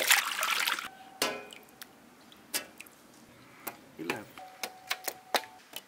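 Hands splashing and swishing stingray pieces in a steel bowl of water for about the first second. Then come scattered light taps and clinks, a few with a short metallic ring, as the wet pieces are handled on steel dishes.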